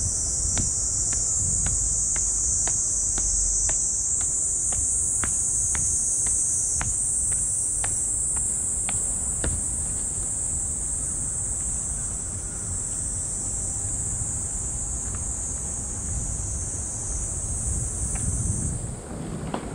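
Loud, steady high-pitched chorus of summer cicadas that cuts off suddenly near the end. Footsteps tick faintly about twice a second through the first half.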